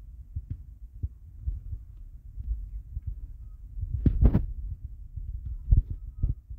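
Low, irregular thumps and rumbling from a phone being handled and swung around, its microphone knocked and rubbed by the hand holding it; a louder knock comes about four seconds in, and a few sharper ones near the end.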